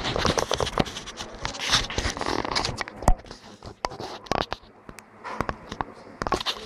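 Handling noise from a handheld camera: irregular rustling, scraping and clicks as it is moved and clothing rubs against the microphone.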